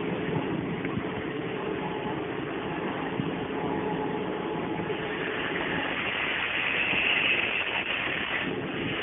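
Railway turntable slowly turning a small steam locomotive, a steady rumbling mechanical noise. A hiss grows louder about two-thirds of the way through. Heard through a mobile phone's microphone.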